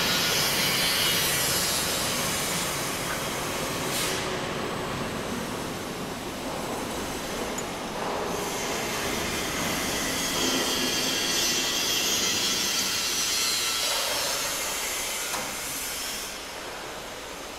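Gearbox-driven roll forming machine running, metal sheet feeding through its roller stations with a steady, bright mechanical noise of rollers and sheet metal. A brief click about four seconds in.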